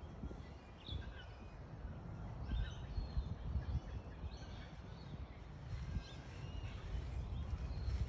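Wild birds giving several short, high chirps at irregular intervals, over a steady low rumble.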